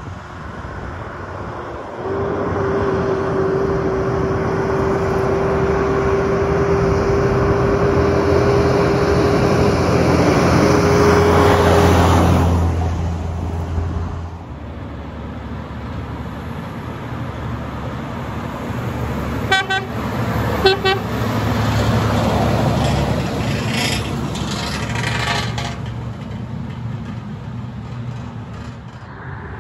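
Heavy truck diesel engines passing on a highway: a steady engine drone builds for about ten seconds and then fades. Later two short horn toots sound about a second apart while another truck's engine runs.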